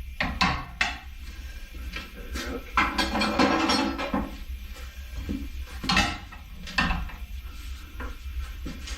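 Metal clanks and knocks from working a motorcycle tire onto its wheel, with a rubbing scrape lasting about a second near the middle, over a steady low hum.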